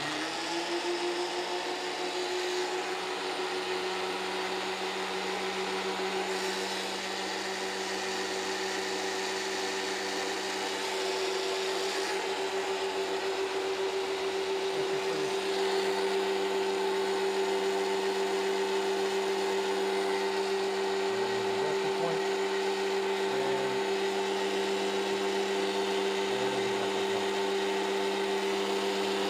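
DeWALT DW735 thickness planer switched on and running with no board fed through it (no load). The motor and cutterhead spin up in the first second, then run at a steady whine.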